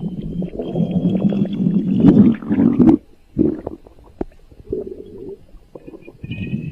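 Human stomach growling: a long, low rumbling gurgle that swells to its loudest about two to three seconds in, then cuts off suddenly. A few quiet gurgles and clicks follow, and the rumbling starts again near the end.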